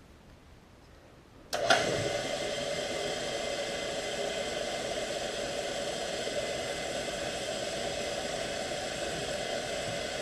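South Bend drill press switched on about one and a half seconds in, its motor and spindle coming up to speed and then running steadily with a constant whine.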